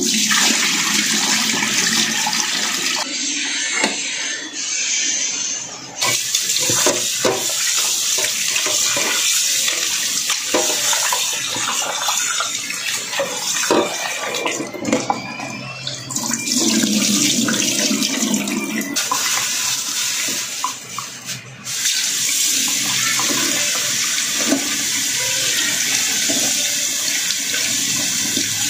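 Kitchen tap running into a stainless steel sink, water splashing as raw meat is rinsed by hand in a metal bowl and then in a wire strainer, with small knocks of metal and a few short breaks in the flow.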